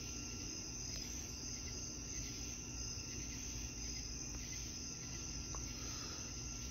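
Crickets chirring steadily in a continuous high-pitched drone, with a low rumble underneath.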